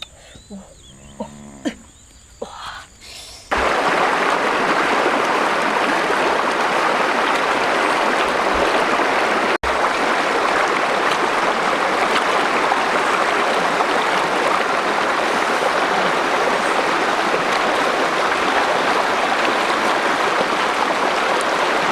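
Steady loud rushing of running water, starting abruptly about three and a half seconds in and holding even, after a few short animal calls and clicks.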